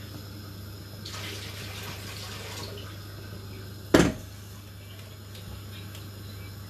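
Kitchen sounds at the hob: a short hissing rush like running water about a second in, then a single sharp, loud knock about four seconds in, over a steady low hum.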